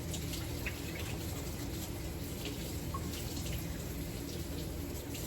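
Kitchen tap running into a sink, a steady splashing hiss.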